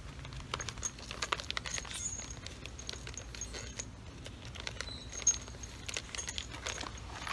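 Small loose metal parts clinking and rattling as they are handled: the spacers, washers and bolts for mounting a motorcycle front fender. A run of light clicks and clinks, the sharpest about five seconds in.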